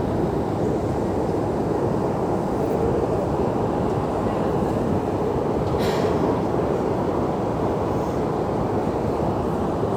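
Steady, even rumble of a running metro escalator in its long tunnel, with one short sharp click about six seconds in.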